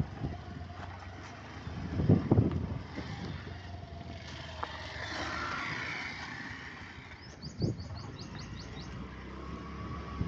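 Steady low rumble of a moving vehicle with wind on the microphone, with a couple of low thumps. A quick series of about eight high chirps comes a little after the middle.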